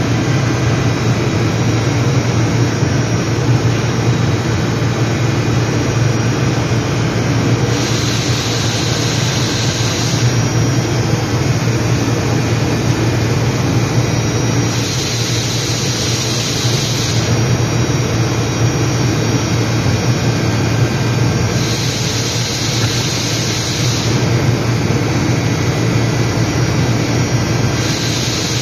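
DMG MORI DMU125P five-axis machining center running with a steady low hum. It is not cutting: a touch probe is in the spindle. A hiss comes and goes four times, about every seven seconds, each lasting two to three seconds.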